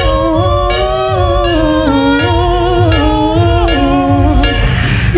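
Beatboxer's vocal music built with a loop station: a hummed melody that steps up and down in pitch over a low, pulsing bass loop, all made with the voice.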